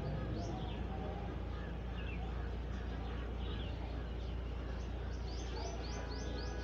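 Small birds chirping, short high chirps scattered through and a quick run of them near the end, over a steady low hum.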